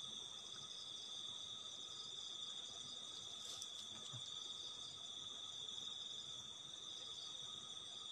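Crickets and other night insects calling in a steady, high-pitched chorus.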